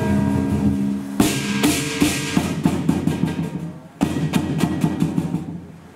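Lion dance percussion band playing: a large drum struck in quick strokes with clashing cymbals and a ringing gong. Two big crashes come about a second in and near four seconds, each dying away.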